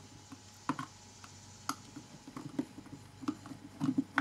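Scattered small clicks and taps of a T7 Torx screwdriver working screws out of the plastic back of an Xbox 360 chatpad, at irregular intervals, with a cluster of taps near the end.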